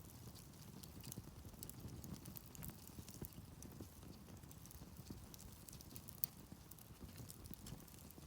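Wood campfire burning quietly, with faint irregular crackles and small pops over a soft low rumble.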